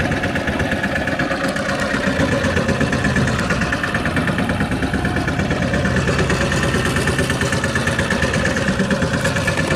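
Fishing boat's engine idling steadily, with an even pulsing beat.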